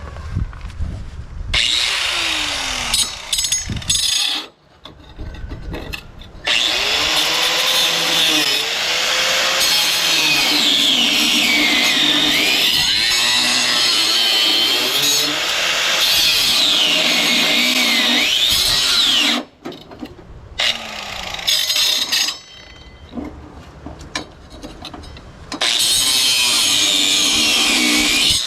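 Power grinder grinding a 6013 steel weld off a lawn tractor's deck pulley, its whine rising and falling as it is worked against the metal. It runs in spells, stopping briefly about four seconds in, for a moment near twenty seconds, and again for a few seconds near the end.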